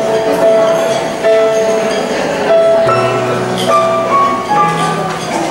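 Yamaha PSR-S970 arranger keyboard played by hand: held notes, with the melody moving up to higher notes about three seconds in.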